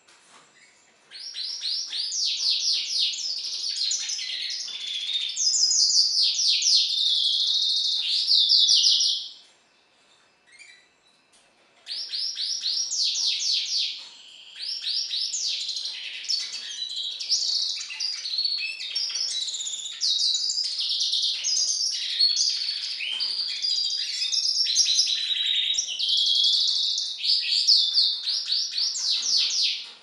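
A Magellanic siskin hybrid (mule) singing a long, fast twittering song of rapid trills and sweeping notes. It starts about a second in, breaks off for about three seconds near a third of the way through, then sings on again.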